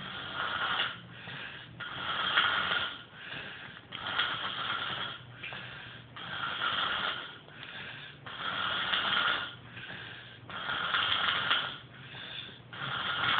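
A sleeping woman snoring, one snore about every two seconds.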